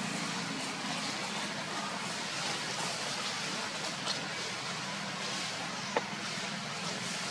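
Steady outdoor background noise with a low hum, broken by two short sharp crackles about four and six seconds in.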